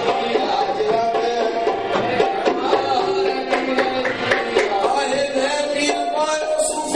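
Qawwali music: tabla drumming with a held melody line that steps from pitch to pitch, playing on without a break.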